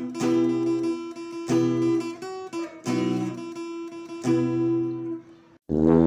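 Background music: acoustic guitar strumming chords, about one chord every second and a half, each left to ring. It fades away about five and a half seconds in, and after a short break a new, louder passage with a low bass starts.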